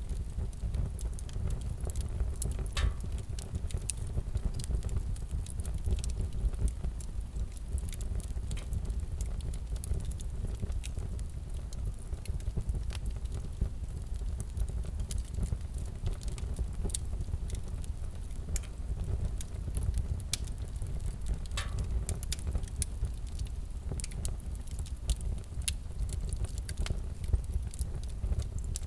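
Wood fire crackling: irregular sharp pops and snaps over a steady low rumble of burning, with a couple of stronger snaps along the way.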